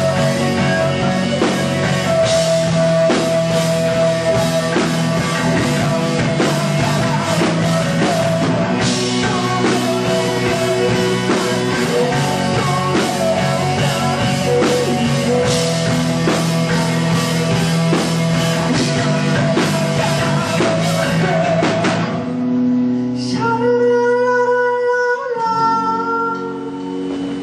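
Live rock band music: guitars and drum kit playing at full volume, with singing, until about 22 seconds in, when the band drops away and only a few long held notes remain.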